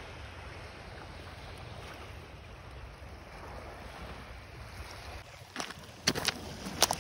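Steady seaside wind and wave noise with a low rumble underneath. Crunching footsteps on stony ground begin about five and a half seconds in.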